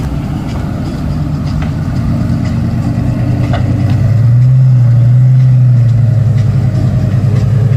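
Lamborghini Gallardo's V10 running steadily at low revs as the car creeps forward, getting louder about halfway through.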